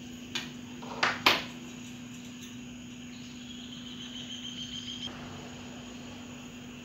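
Three sharp metal clinks about a second in, the last the loudest, as steel pliers knock against a gas camping stove's metal burner grate, over a steady low hum. A faint thin high tone follows for about two seconds.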